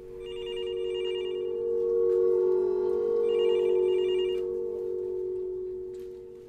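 A telephone ringing twice, each ring a trilling burst a little over a second long, over a steady low tone.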